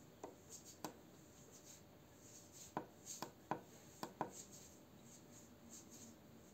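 Tactile push buttons on a TS100 soldering iron clicking under a finger as the temperature setpoint is stepped up: two soft clicks near the start, then five sharper ones in quick succession in the middle, over a near-silent room.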